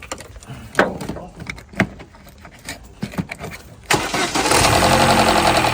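A few clicks and knocks, then about four seconds in the Vauxhall Zafira's engine starts and settles into a steady idle.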